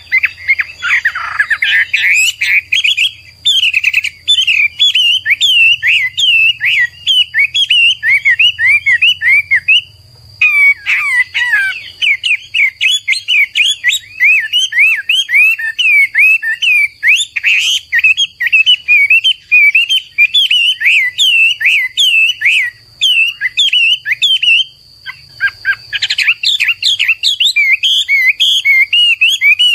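Chinese hwamei (Garrulax canorus) singing a long, loud, fast song of rapid varied whistled notes, breaking off briefly twice.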